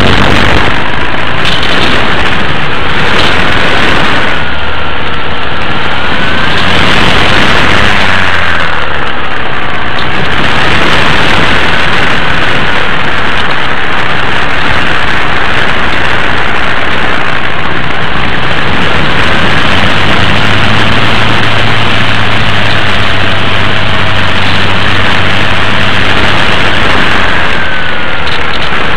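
A radio-controlled model airplane's motor running in flight, picked up by a camera on board the plane: a loud, steady drone mixed with wind rush, its pitch slowly wavering up and down.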